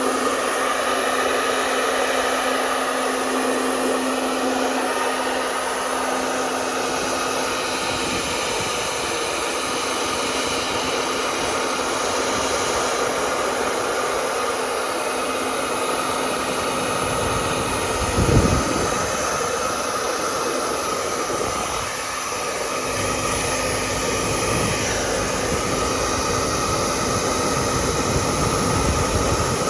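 Hair dryer running steadily, a constant blowing rush with a motor hum. A brief low thump about two-thirds of the way through.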